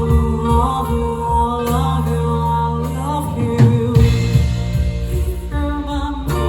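Live rock band playing, with drums and bass under a sung melody.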